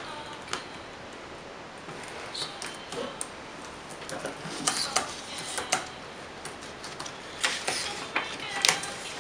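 Irregular light clicks and taps of small objects being handled on a table. They are sparse at first and come more often in the second half, the loudest near the end.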